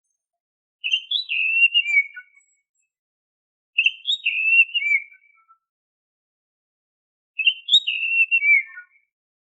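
Oriental magpie-robin (kacer) giving its characteristic whistled phrase three times, about three seconds apart: each a short run of clear notes that steps up and then falls away.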